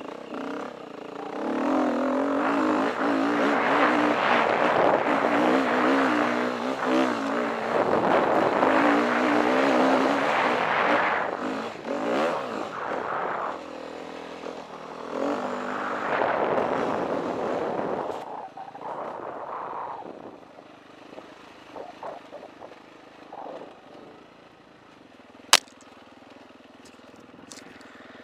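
KTM 350 EXC dirt bike's single-cylinder four-stroke engine running hard on the trail, the revs rising and falling with the throttle. After about 18 seconds it drops to a much lower level, with a single sharp knock a few seconds before the end.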